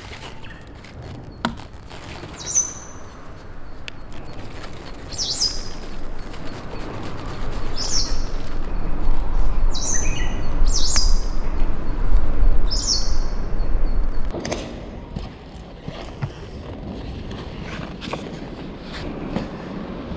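A bird repeating a short, high call that falls in pitch, about six times at intervals of two to three seconds. A low rumble swells in the middle and dies away about fourteen seconds in, with a few light clicks.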